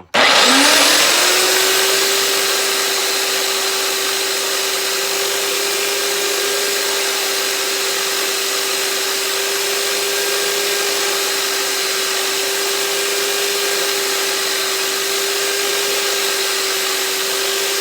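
Electric grinder spinning up with a rising whine, then running at a steady pitch under a loud hiss as the spear's tip is sharpened; it cuts off suddenly at the end.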